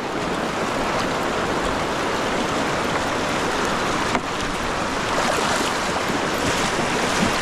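Steady rush of river current flowing around a wading angler, close to the microphone, with a brief dip about four seconds in.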